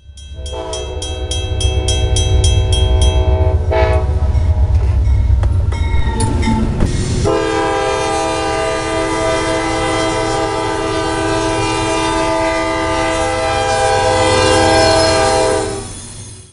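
Diesel freight locomotive's multi-note air horn sounding over the low rumble of the engine and the train on the rails. The horn breaks off and starts again about seven seconds in, then holds one long blast that dies away near the end.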